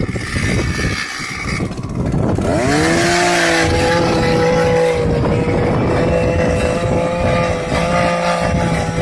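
Powered ice auger drilling into lake ice: its motor speeds up with a rising pitch about two and a half seconds in, then runs at a steady high pitch as the auger bores down.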